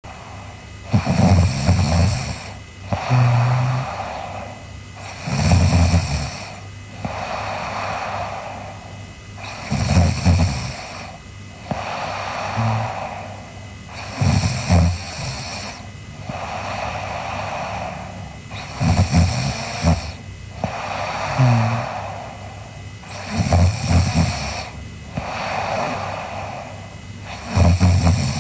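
A girl snoring in her sleep: each breath brings a low, rattling snore followed by a softer airy breath, repeating evenly about every four and a half seconds.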